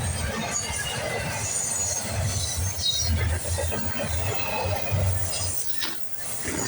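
Freight train cars, intermodal container cars and autoracks, rolling past on the rails with a steady low rumble of wheels. Short high-pitched wheel squeals come and go over the rumble, and there is a sharp metallic knock near the end.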